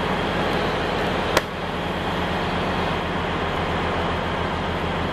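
Steady low hum of a running vehicle engine with road noise, and a single sharp click about a second and a half in.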